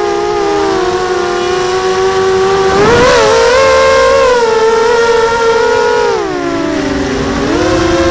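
Mini FPV quadcopter's motors and propellers whining in flight, several close pitches sounding together. The pitch rises about three seconds in with a brief rush of noise, sinks between about six and seven and a half seconds in, and climbs again near the end.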